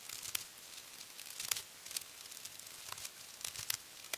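Shower curtain rings being hooked on: irregular light clicks of the rings with crinkling and rustling of the shiny curtain.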